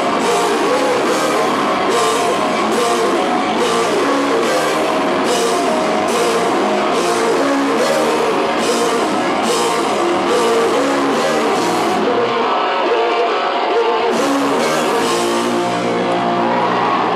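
Live rock band playing loud electric guitars, bass and drums, with cymbals crashing on a steady beat. The cymbals drop out for about two seconds around twelve seconds in, return briefly, then stop again as the song winds down.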